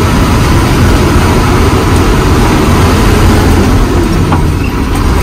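Heavy lorry driving at speed, heard from inside the cab: a steady low diesel engine drone under a haze of road and wind noise.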